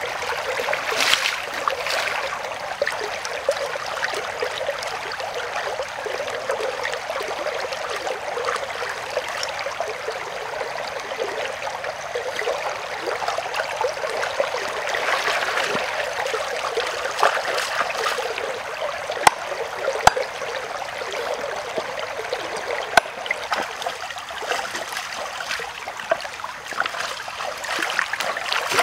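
Shallow stream water running and splashing around hands rinsing a whole plucked chicken in it. There are a few sharp little clicks in the second half.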